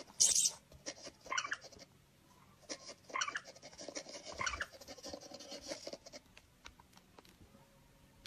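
Kittens pawing at a tablet screen: soft taps and scratches of paws on the glass, with a few short high-pitched sounds at intervals.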